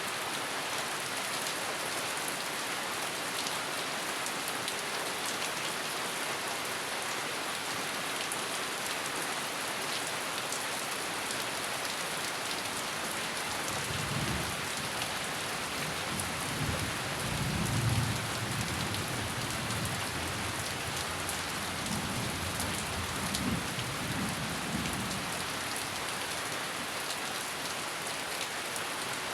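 Steady heavy rain falling, with low thunder rumbling in the distance from about halfway through, swelling twice and loudest near the middle.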